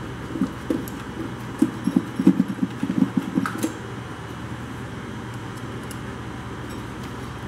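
Irregular metallic clicking and rattling for about three and a half seconds as a nut driver runs the two nuts onto a commercial toaster's thermocouple probe assembly. A steady low hum continues after the clicking stops.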